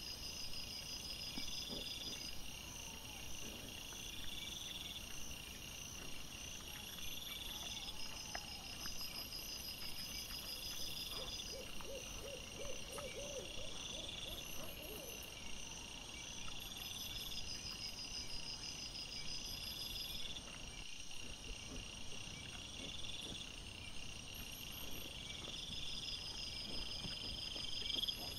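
Night insects chirping in a regular, repeating high-pitched pattern. About halfway through comes a short run of about six lower, hoot-like calls.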